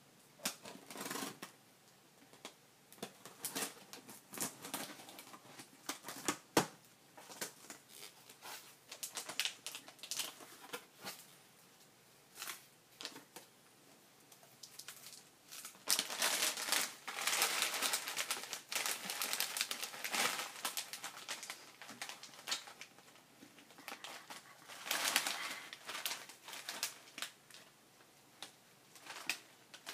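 Cardboard shipping box and its plastic wrapping rustling, crinkling and scraping in irregular bursts as the box is cut open and cats paw and push into it, with scattered taps and one sharp knock. The rustling is busiest from about the middle of the stretch onward.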